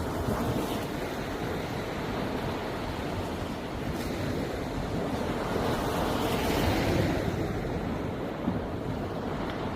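Sea waves washing onto the shore, with wind buffeting the microphone. A wave surges louder about six to seven seconds in.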